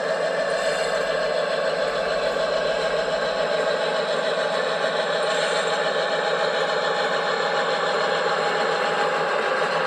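Cavalex Class 60 model locomotive running, giving a steady, unbroken mechanical hum.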